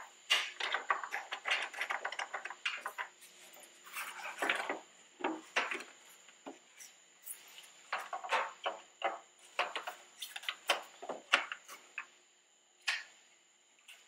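Hand tool clicking and scraping on the bolts and plastic parking/turn signal lamp housing of a 2004 Ford F-250 as the housing is unbolted and worked out of the front bumper: quick clicks and knocks in clusters with short pauses, and one last knock near the end.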